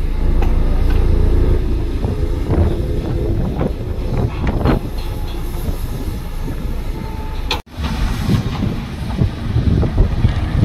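Heavy construction machinery working: a diesel engine rumbling steadily with irregular metallic clanks and knocks. The sound cuts out for an instant about two-thirds of the way through.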